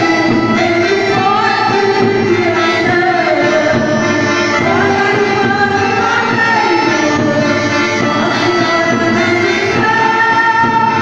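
Music: a song with a sung melody of held and gliding notes over instrumental accompaniment.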